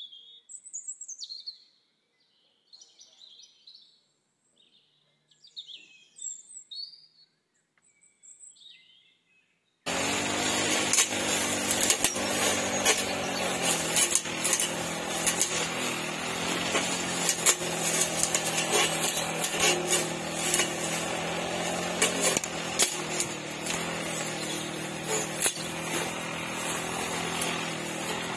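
Birds chirping in short calls for about ten seconds. Then a brush cutter with a metal blade cuts in suddenly and runs loud and steady, its engine pitch shifting a little with throttle, the blade ticking and clicking as it cuts through grass.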